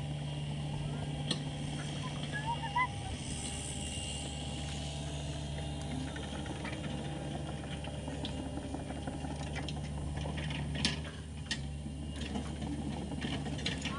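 Hitachi ZX48U mini excavator's diesel engine running steadily, with scattered clicks and knocks and a few short squeaks.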